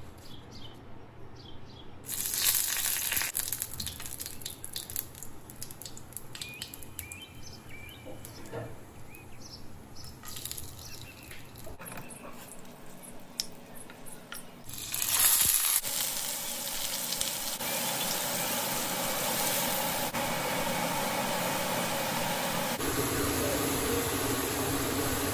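Hot mustard oil crackling and popping in a non-stick frying pan with whole spices in it. About fifteen seconds in it turns suddenly louder into a steady sizzle as chopped onion and ginger-garlic paste fry.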